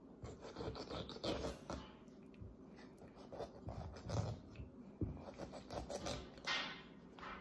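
Knife cutting and scraping through a cusk's skin and flesh on a wooden cutting board while the fish is filleted: a run of irregular scratchy strokes.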